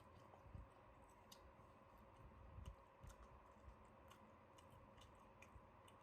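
Near silence: faint room tone with small, scattered clicks, about one or two a second.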